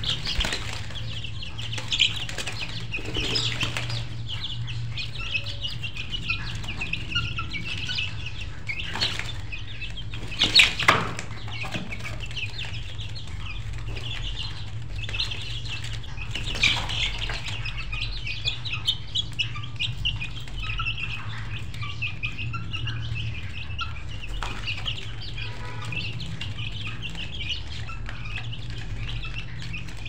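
Many birds chirping continuously, with chickens clucking among them, over a steady low hum. A few brief sharp sounds cut through, the loudest a pair about ten and a half seconds in.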